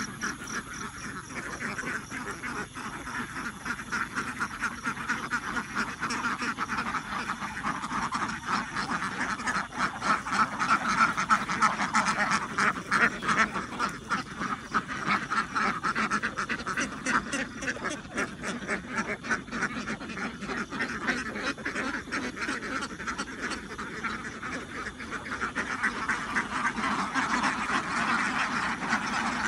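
A large flock of laying ducks quacking all together, many calls overlapping into a continuous chatter that swells a third of the way through and again near the end.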